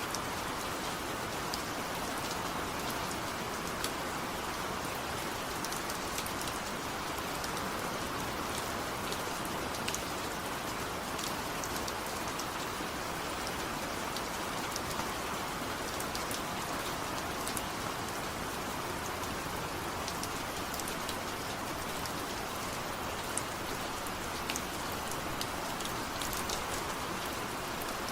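Steady rain falling, a constant even hiss with scattered sharp drop ticks of individual raindrops striking a surface.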